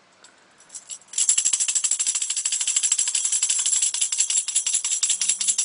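Metal jingles of a hand percussion instrument shaken rapidly and continuously, starting suddenly about a second in.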